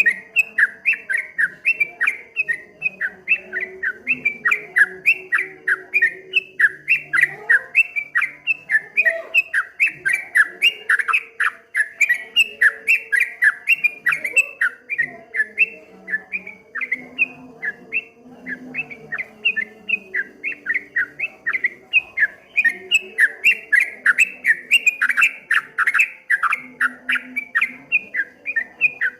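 A yellow-vented bulbul (trucuk kebo) sings a rapid, unbroken run of short chattering notes at about three to four a second, in the rolling 'ropel' style.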